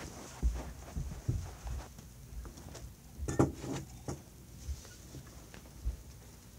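Handling noise close to a phone's microphone: irregular soft thumps, taps and clicks as small objects are moved about, with the loudest clatter about three and a half seconds in.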